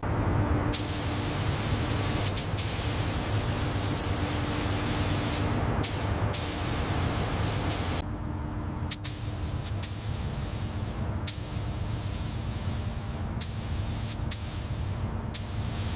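Steady spraying hiss over a low machine hum, starting abruptly, with several sharp clicks scattered through it; the hiss thins out about halfway through.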